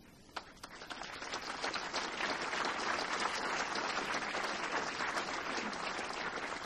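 A crowd applauding to welcome a speaker who has just been introduced. The clapping swells over the first couple of seconds and then holds steady.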